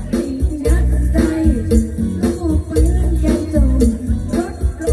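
A woman singing into a microphone over loud amplified music with a steady beat and regular percussion strokes.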